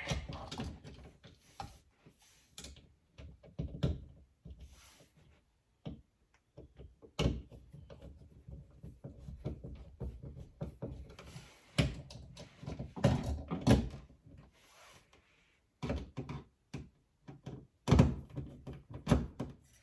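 Irregular small clicks, scrapes and knocks of hand work on an electrical outlet: a screwdriver tightening the receptacle's terminal screws and the outlet and its wires being handled, with a few sharper knocks near the middle and near the end.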